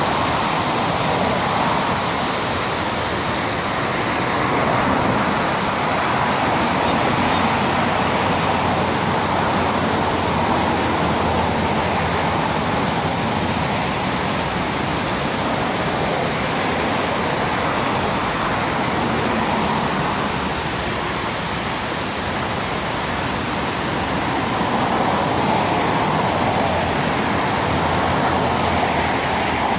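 River water pouring over the full width of a low dam's spillway and churning below it: a steady, loud rushing with no breaks.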